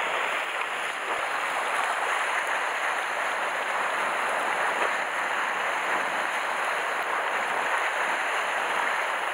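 Small sea waves washing and breaking against shore rocks, a steady wash of surf.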